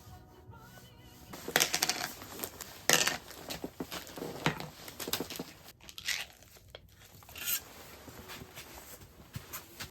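Crinkling and rustling handling noises, a run of sharp irregular strokes that is loudest in the first half and tails off near the end.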